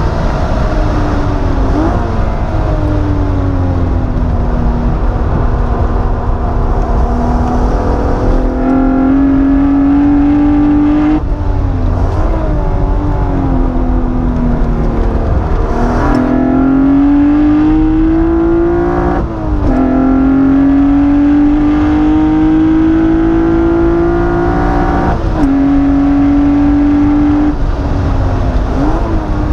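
Alfa Romeo SZ's 3.5-litre V6 heard from inside the cabin at racing speed, the revs climbing and falling through the corners. Several gear changes break the note, each a sudden step in pitch.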